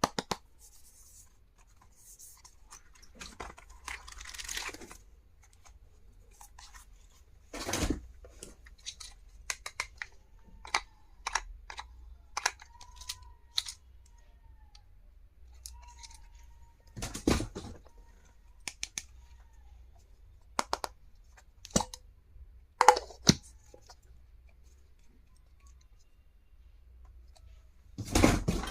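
Stationery packaging being handled and opened by hand: scattered clicks and taps, with a few louder rustling and tearing sounds spread through.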